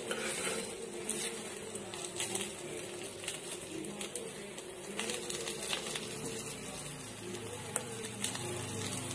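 Banana-leaf-wrapped fish parcels sizzling faintly in oil on a hot pan, with occasional light clicks as a metal spoon and tongs press and turn them.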